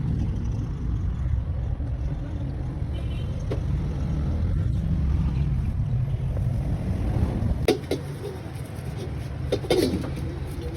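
Honda Vezel engine idling with a steady low rumble, shutting off about eight seconds in, followed by a few sharp clunks.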